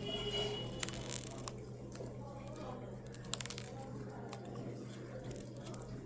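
Small birds feeding on seed: scattered clicks and crunches of pecking, with a few short high chirps near the start, over a steady low hum.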